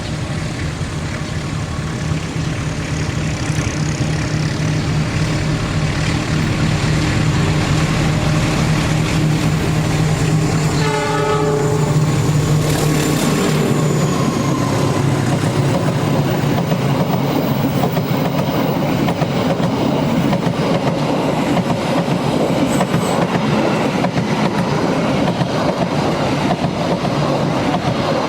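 Diesel-hauled passenger train passing close by: the locomotive's engine running steadily, a brief horn blast about eleven seconds in, then the carriages going by with a steady rumble and clatter of wheels over the rail joints.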